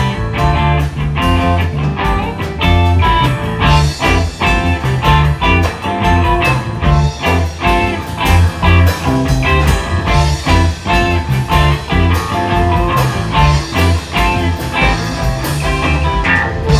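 Blues-rock music with electric guitar, bass and drums, with a steady beat.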